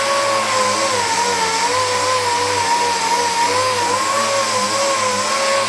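Orbital sander running against a car's painted body panel, a steady whine over a broad hiss, its pitch wavering slightly as it is worked across the surface. It is sanding off the old flaking clear coat to prep the car for paint.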